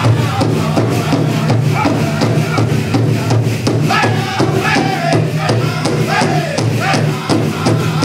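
Powwow drum group playing a jingle dress song: a steady beat on a big drum with high-pitched singing, strongest in the second half, and the metal cones of the dancers' jingle dresses rattling.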